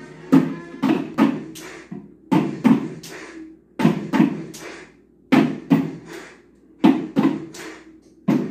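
Upturned plastic buckets drummed with sticks, played as a steady rhythm. A short figure of quick strikes, mostly three, repeats about every second and a half, and each hit is a hollow thud that dies away quickly.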